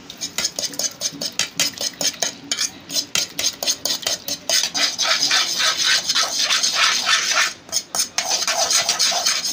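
Raw egg with chopped herbs and spices being beaten with a spoon in a metal pan: a quick run of clinks and scrapes, several strokes a second, as the spoon knocks against the bottom and sides of the pan.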